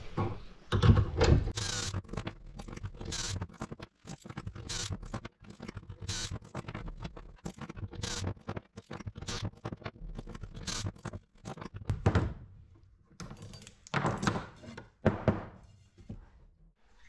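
Cordless drill used in short bursts to drill and countersink holes in a wooden strut, with short knocks of wood and tools on a workbench; the strokes come irregularly, a little under one a second, and thin out near the end.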